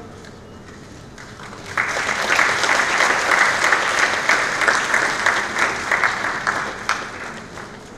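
Audience applauding, starting suddenly about two seconds in and fading out near the end.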